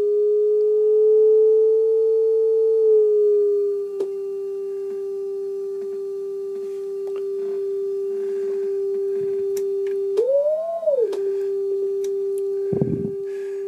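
Sine-wave tone from a Behringer 921 oscillator, run through a Teensy-based 1630d digital frequency shifter, sounding steadily a little under 400 Hz. Its pitch creeps up slightly over the first few seconds and settles back, then about ten seconds in it swoops up and back down within about a second as the shift control is turned. A brief low thump comes near the end.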